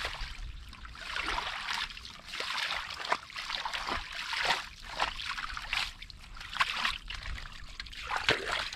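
Muddy shallow water being sloshed and splashed, in repeated surges with short wet splats, as when mud and water are worked through by hand or foot.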